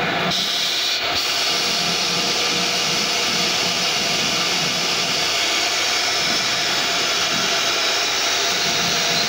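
CNC router spindle running at speed while its small end mill cuts paw-print shapes out of a sheet of board, a steady high hiss and whine throughout.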